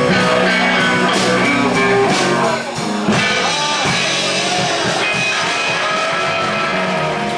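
Slow electric blues played by a band, with the lead guitar holding and bending sustained notes over the accompaniment.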